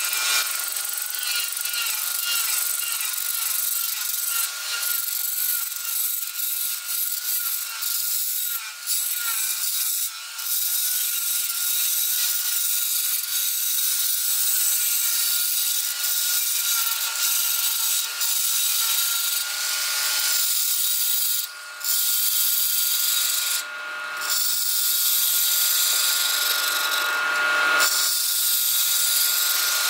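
Turning tool cutting the face of a bamboo piece spinning on a lathe: a steady scraping hiss over a faint steady whine, with a few brief breaks in the cut.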